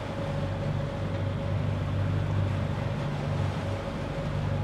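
A catamaran's engine running steadily under way: a low, even drone with a steady hum above it, over the wash of water and wake along the hull.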